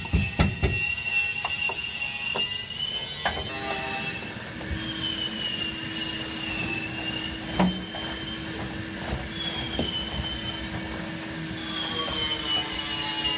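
Ratchet wrench clicking as the bolt through a leaf spring's front eye is worked tight. There are a few sharp metal knocks in the first second and another about eight seconds in.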